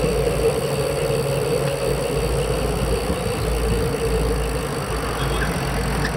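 Steady riding noise picked up by a bicycle-mounted action camera: low wind rumble on the microphone and a hum of tyres rolling on asphalt. The hum eases a couple of seconds in.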